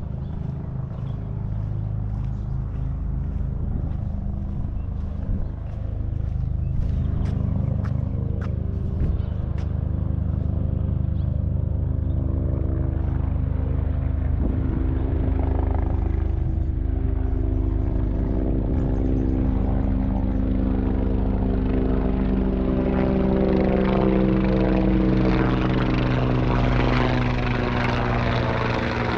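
An aircraft engine droning overhead, its steady hum growing louder and brighter over the stretch as it comes closer.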